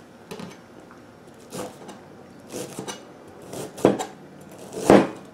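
Chef's knife cutting through raw cabbage and knocking on a plastic cutting board: about five separate chops, the loudest near the end.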